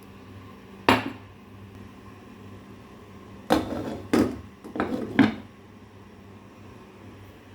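Kitchen cookware and utensils clattering: one sharp knock about a second in, then four quick clanks a couple of seconds later, over a steady low hum.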